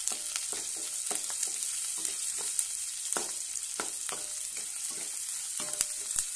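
Onions, dried red chillies and freshly added curry leaves sizzling in hot oil in a nonstick kadai, with a steady hiss. A wooden spatula stirs them, giving frequent short scrapes and taps against the pan.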